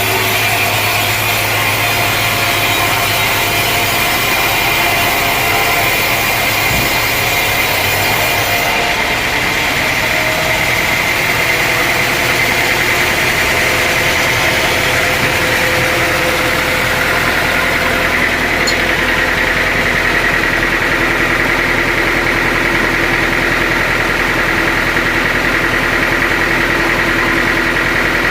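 Sawmill engine running steadily with a constant high whine; about nine seconds in, the hiss in the upper range drops away, leaving the engine's steady hum.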